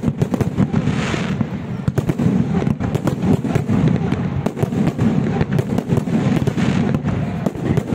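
Fireworks display: a dense, rapid barrage of aerial shells bursting and crackling, with no gaps. There is a hissing rush about a second in and again near the end.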